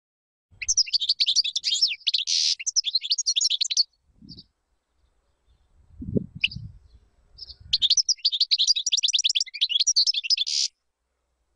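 European goldfinch singing two phrases of rapid, twittering song, each about three seconds long, with a pause between them. A low thump falls in the pause.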